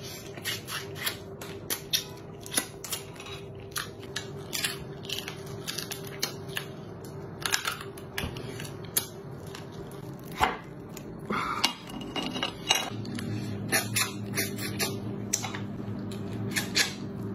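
Cooked crab being eaten: irregular sharp cracks and crunches of shell broken apart by hand and bitten, with chewing. Underneath runs a low steady hum that drops in pitch and gets louder about thirteen seconds in.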